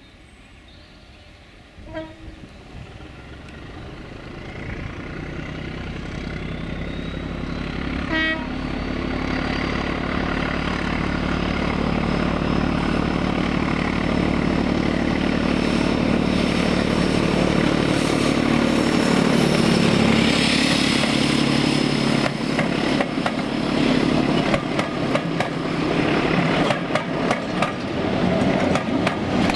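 Class 14 diesel-hydraulic locomotive D9551, with its Paxman Ventura engine working hard, approaching with a passenger train. Its engine note and a thin whistle grow steadily louder, and the note drops in pitch as it passes about two-thirds of the way through. After that come the coaches' wheels clicking over the rail joints. Two brief higher tones sound early on, at about two and eight seconds.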